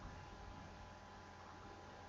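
Near silence: faint steady hiss and low hum of the recording's room tone.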